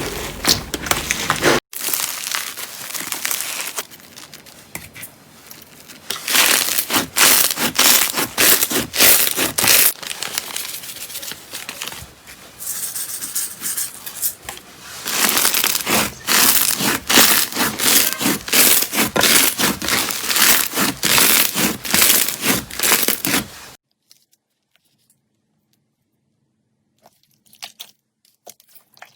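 Slime being squeezed and pressed, with dense crackling and popping in swells that come and go. Near the end it stops for a few seconds of near silence, then faint clicks return.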